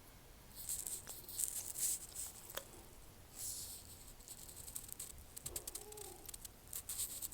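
Small hand tools clicking and scraping on an iPhone 7 Plus's parts during a screen replacement: quick runs of light, high ticks with brief pauses between them.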